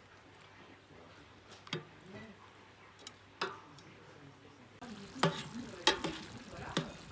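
Paella simmering in its pan over a wood fire: a low sizzle with scattered sharp clicks and crackles, growing louder and busier about two thirds of the way in.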